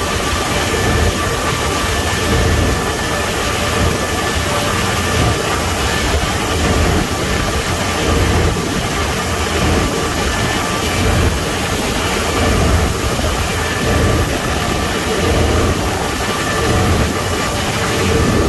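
Automatic car wash machinery running: a steady, loud roar with a faint constant whine on top, heard from inside the vehicle in the wash bay.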